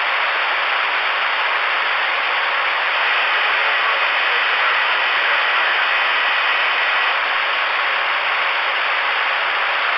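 CRE 8900 CB radio receiver hissing with steady open-channel static after the transmission is unkeyed, with a faint steady whistle for a few seconds in the middle.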